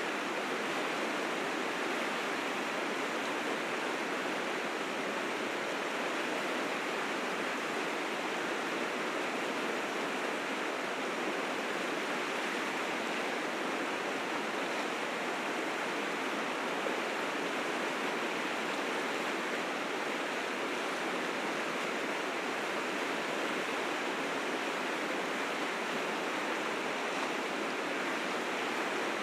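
Rapids rushing in a spring snowmelt flood: a steady, full roar of fast white water that does not change.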